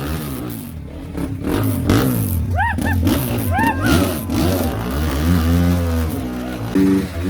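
Motorcycle engine revving up and down repeatedly, its pitch rising and falling. A few short high rising-and-falling calls come through near the middle.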